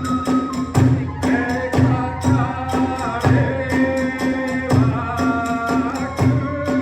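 Kagura festival music: a rapid run of metallic hand-cymbal clashes several times a second over a taiko drum beating about once a second, with a bamboo transverse flute playing a wavering melody above.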